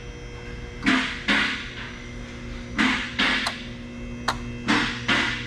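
Background music with a slow drum beat: pairs of snare-like hits repeating about every two seconds over a sustained tone.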